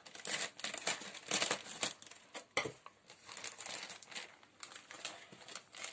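Plastic wrapping around a seedling being cut open and pulled apart by hand, crinkling and rustling in irregular bursts. It is busiest about a second and a half in, with a sharp crackle a little later.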